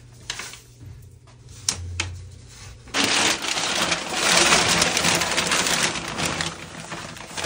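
Stiff brown kraft paper crinkling and rustling loudly as it is bunched up and worked off its cardboard roll, starting suddenly about three seconds in after a few faint handling clicks.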